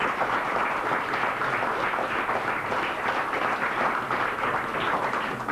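Studio audience applauding: many hands clapping in a dense, even patter that fades out near the end.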